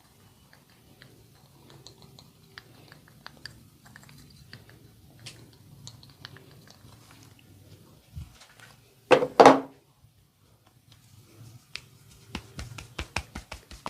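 Hands massaging a person: soft rubbing with small scattered clicks, then two loud short smacks about nine seconds in. Near the end a rapid even tapping starts, about four to five strokes a second.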